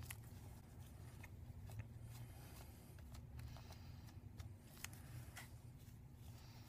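Near silence with faint, scattered scratching and light ticks of hand work cleaning leftover glue bits off a phone's LCD, over a low steady hum.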